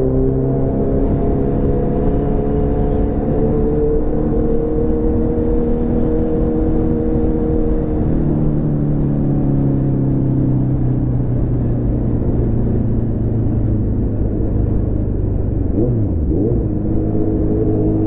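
Kawasaki Z900's inline-four engine running as the bike rides along at moderate speed, its note sinking slowly. About halfway through the note shifts to a new pitch and then keeps easing down, with a quick dip and rise in pitch near the end.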